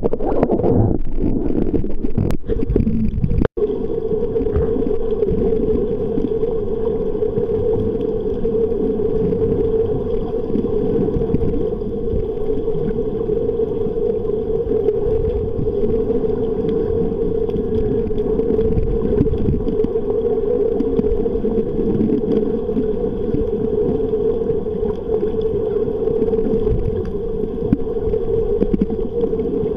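Underwater recording: a steady low drone over muffled water noise. For the first three seconds or so there are irregular knocks and splashes, which break off in a brief dropout.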